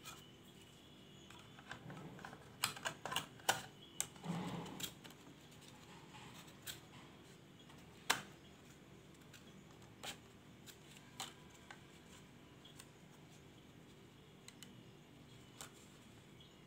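Small sharp clicks and taps of laptop parts being handled and fitted back together by hand: a quick run of clicks a few seconds in, then single clicks every second or two.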